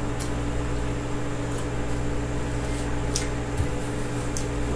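A steady mechanical hum, with a few faint light ticks.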